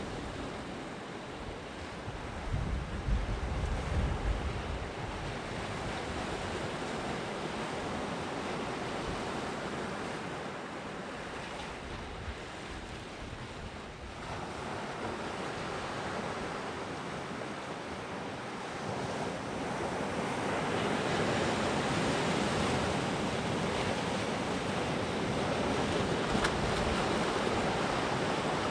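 Sea waves breaking and washing onto the shore, with wind gusting on the microphone a few seconds in. The surf swells louder about two-thirds of the way through.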